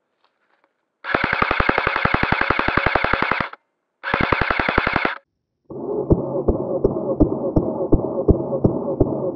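Two bursts of rapid automatic gunfire, about a dozen shots a second, the first starting about a second in and lasting over two seconds, the second shorter. Just before six seconds music with a heavy thumping beat takes over.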